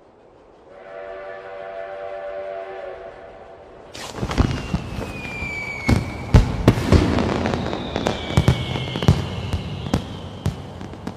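A steam train whistle sounds a steady chord for about three seconds. Then fireworks go off: repeated bangs and crackles, with whistling shells that fall in pitch.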